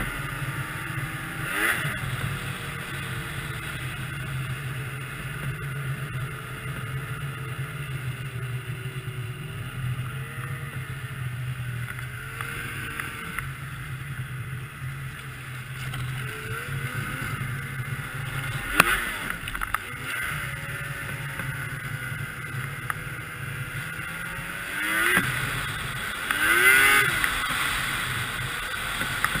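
2002 Yamaha SX Viper 700 snowmobile's three-cylinder two-stroke engine running under way, its pitch rising and falling with the throttle. A sharp knock comes about two-thirds through, and near the end the engine gets louder as it revs up and back down.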